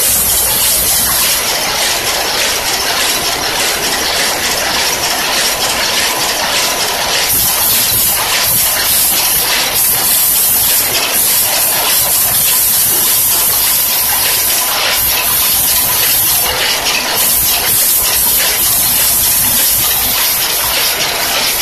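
Cigarette soft-pack packing machine running fully automatic: a loud, steady mechanical clatter of rapid ticks over a hiss.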